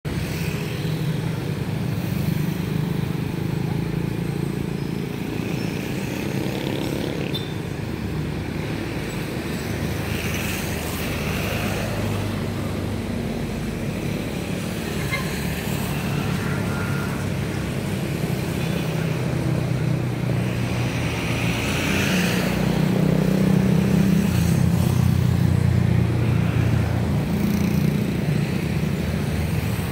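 Steady low rumble of motor vehicle engines running, with traffic noise; it swells louder about two-thirds of the way through.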